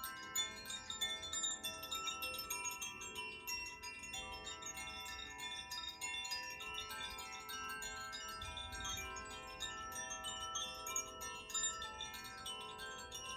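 Koshi and Zaphir chimes, several hung chimes ringing together: a continuous stream of light strikes over many overlapping, long-sustained tones.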